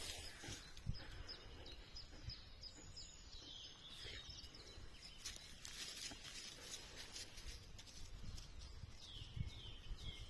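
Small birds chirping in quick series of short, high notes, with a few falling chirps near the end. A faint low rumble sits underneath.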